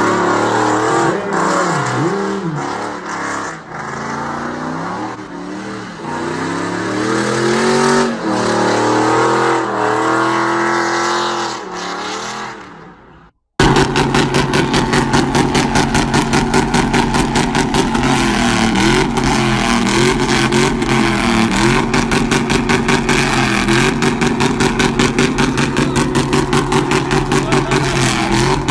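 Pickup truck with a loud aftermarket exhaust revving up and down. It fades out, and after a cut a loud exhaust runs with a fast, even pulsing chop.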